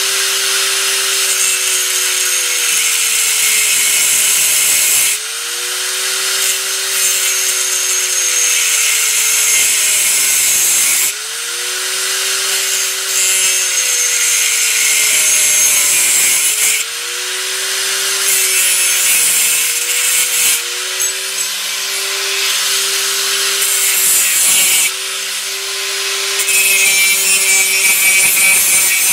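Electric angle grinder running and cutting through PVC roller tubing, with a loud hiss of cutting over the motor's whine. The motor's pitch sags and recovers about five times as the disc bites into the tube and eases off.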